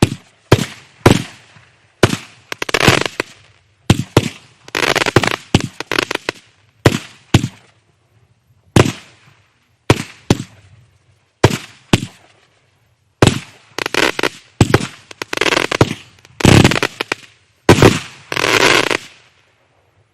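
Kimbolton Razzle Dazzle 49-shot firework cake firing tube after tube, a sharp bang every half second to a second. Several shots are followed by about a second of dense crackling from crackling-star bursts. The firing stops shortly before the end as the cake finishes.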